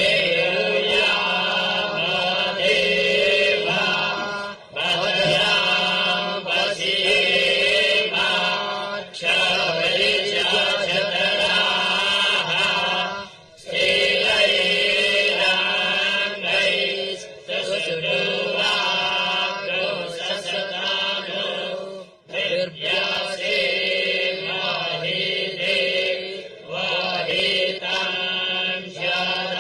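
Several conch shells (shankha) blown together in long, slightly wavering held blasts of a few seconds each, with brief breaks for breath.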